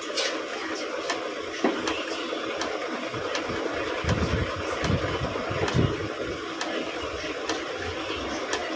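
Steady engine-like running noise, with faint ticks about once a second and a few low thuds around the middle.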